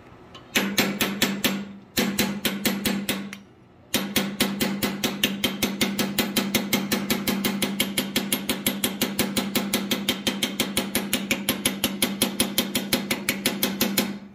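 Rapid, evenly spaced strikes on a steel ball punch texturing forged steel, about five or six a second, with a low hum under them. They come in two short runs, then a long run from about four seconds in.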